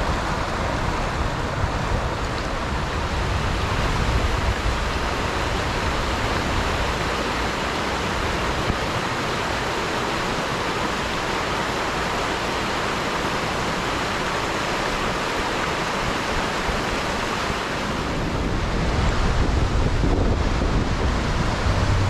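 Steady rush of a mountain river's flowing water, with wind buffeting the microphone, heavier near the end.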